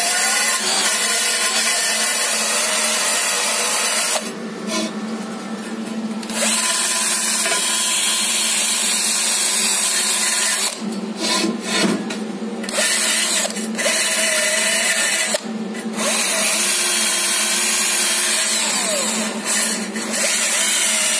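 Bosch cordless drill spinning a wire wheel brush against a cast aluminium wheel rim, scrubbing grit out of the cut groove at a crack so the weld will not come out porous. The drill's whine and the brush scrubbing run steadily, with a few short pauses.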